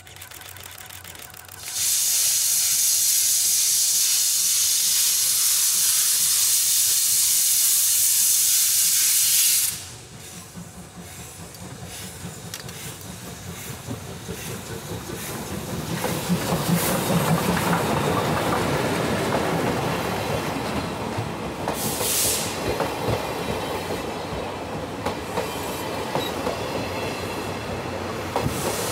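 Steam locomotive C58 363 approaching with a loud, steady hiss of venting steam that cuts off suddenly about ten seconds in. Its rumble then builds as it passes, with a short burst of steam hiss a little later. The coaches roll by with clicking wheels on the rail joints.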